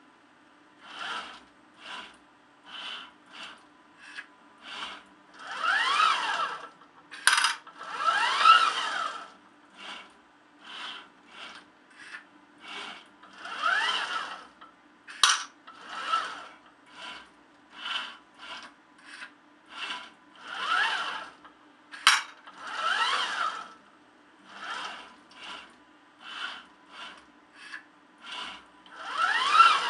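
Servo motors of an HP G1203A ORCA robot arm whirring through a series of short moves. Several longer moves carry rising and falling whines, and there are a few sharp clicks. A steady low hum runs underneath.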